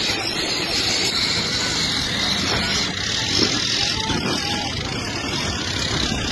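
Tractor engine running, under a steady rush of noise.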